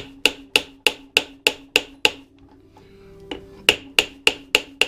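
Hammer striking a screwdriver in quick, even taps, about three a second, to shock loose corroded Phillips screws in a Harley-Davidson Evo engine. There are two runs of taps with a pause of about a second and a half between them, and each tap rings metallically.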